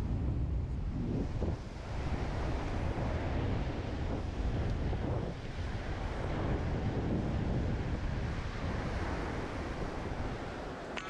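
Strong wind buffeting the microphone, a heavy low rumble, with surf washing in behind it.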